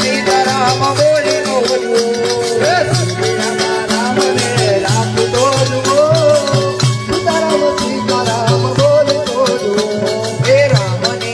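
Instrumental interlude of devotional dhun (bhajan) music: a bending melody line over a repeating drum beat, with steady rattling, shaker-like percussion.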